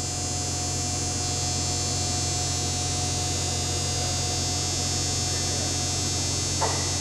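Steady electrical hum, low and unchanging, with a thin steady whine above it and a background hiss. A brief scuffing noise comes near the end.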